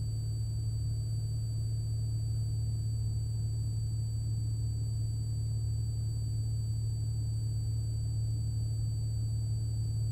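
Cessna 182RG's six-cylinder Lycoming engine and propeller in the climb, a steady low drone, with a faint steady high-pitched whine above it.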